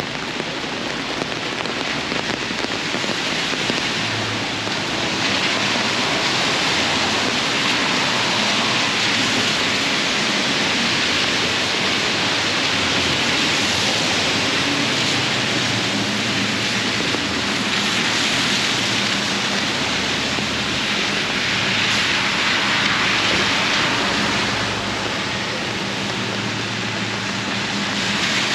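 Heavy rain falling and splashing on surfaces, a dense steady hiss that swells and eases every few seconds, with a faint low hum underneath.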